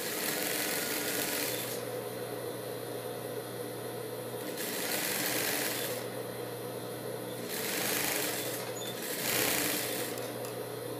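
Industrial sewing machine stitching a satin ribbon onto fabric in four short runs, each a second or so long, with a steady motor hum in between.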